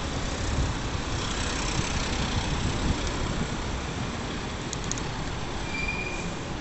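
Wind buffeting the microphone on a moving bicycle, over steady city traffic noise. A few faint ticks about five seconds in and a brief high tone about a second later.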